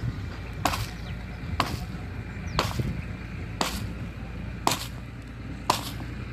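Six sharp strikes, about one a second, from a hard tool chopping or knocking, over a low steady rumble.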